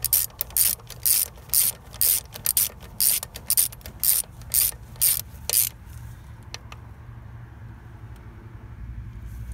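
Hand ratchet with a 10 mm socket clicking in quick repeated strokes, about two a second, snugging down the bolts of an A/C hose fitting on a compressor; the strokes stop a little past halfway.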